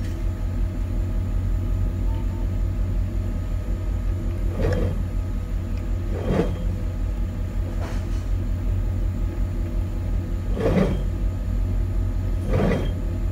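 A large truck's engine idling steadily, with five short knocks and clanks of metal and debris being handled spread through it.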